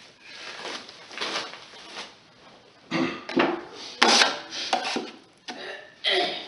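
Drywall taping knife scraping joint compound out of a mud pan and smearing it across the wall in a series of scraping strokes, with a sharp clack of the blade about four seconds in.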